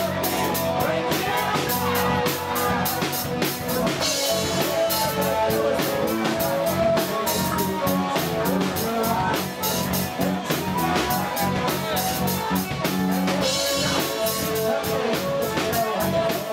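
Live rock band playing loud in a bar: a steady drum-kit beat with electric guitar and bass, heard from within the crowd. A wash of cymbals swells twice.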